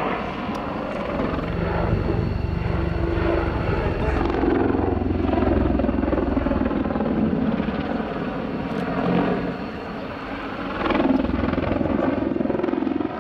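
AH-64 Apache attack helicopter flying a display overhead, its rotor and engine sound swelling and fading as it banks and turns, with a dip about ten seconds in and a rise soon after.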